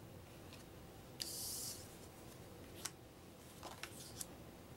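Game cards being handled: a short papery slide of one card over another about a second in, then a few light clicks and taps as a card is laid down.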